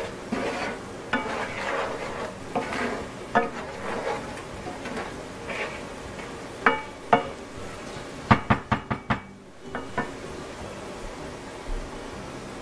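A wooden spoon stirs and scrapes sautéed onion, garlic and jalapeño in a nonstick frying pan. Sharp knocks of the spoon against the pan follow, with a quick run of about six around eight seconds in.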